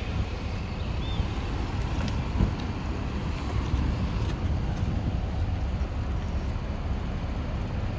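Wind buffeting the microphone, a steady low rumble, with street traffic faint behind it.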